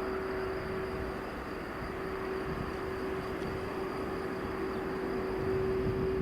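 Airbus A320 jet engines running: a steady rumble with a steady whine, growing a little louder near the end.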